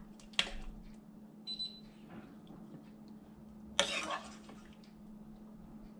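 A serving utensil clinking and knocking against a plate while stir-fried pork liver is heaped onto it: a sharp click just after the start, a small ringing clink at about a second and a half, and a louder clatter about four seconds in. A steady low hum runs underneath.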